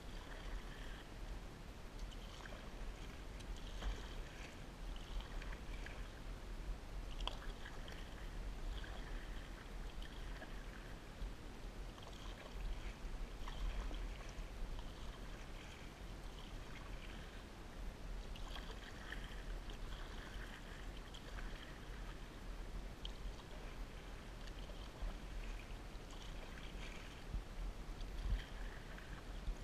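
Canoe paddle strokes in lake water: the blade swishing through and dripping as it comes out, with water moving along the hull, over a constant low rumble.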